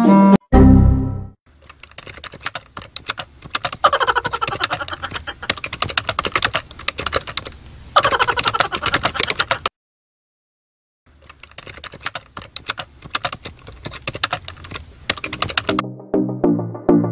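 Keyboard typing sound effect: rapid key clicks in two long runs with a silent gap of about a second and a half between them. A low thump sounds at the start, and music comes in near the end.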